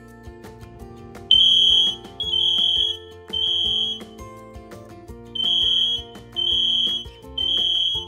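Interlinked smoke, heat and carbon monoxide alarms sounding their test alarm together after the remote's test button is pressed. Loud, high-pitched beeps start about a second in and come in two groups of three with a pause between, the temporal-three alarm pattern, over background music.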